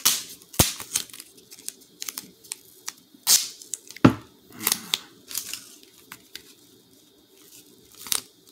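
Strip of orange tape being torn and then pressed and wrapped around the back end of a foam rocket: scattered sharp snaps and crinkles, the loudest about four seconds in.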